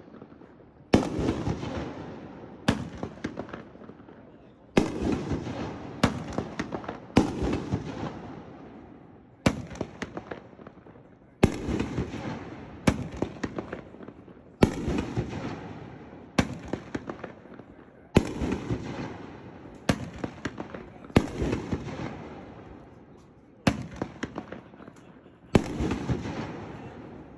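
A 500 gram 9-shot consumer fireworks cake (Tako brand 'Portal') firing its shells. Loud bangs come every second or two, and each trails off into a crackling tail.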